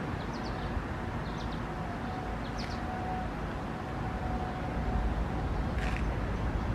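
Outdoor ambience: wind buffeting the microphone, with the low rumble growing stronger in the last couple of seconds. A few short bird chirps sound over it, along with a faint steady tone.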